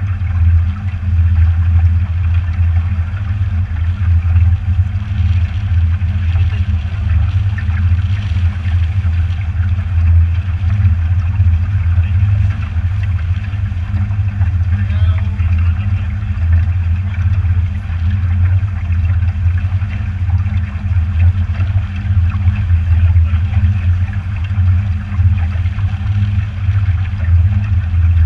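Motorboat running steadily under way: a constant low engine drone with the wash of water along the hull.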